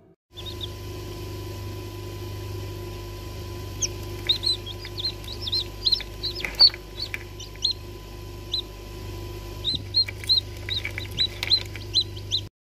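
Newly hatched chicks peeping in an egg incubator: many short, high peeps in quick runs, starting about four seconds in, over a steady low hum.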